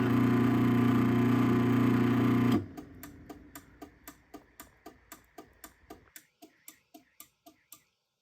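Craftsman 1/2 hp chain-drive garage door opener's motor running, then cutting off abruptly about two and a half seconds in. A series of sharp relay clicks follows at about four a second, fading, as the opener's light blinks 10 times: the warning that the safety sensors were blocked.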